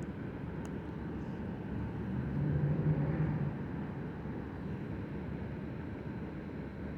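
Low, steady engine rumble from passing motor traffic, swelling about two seconds in and easing off a little after three seconds.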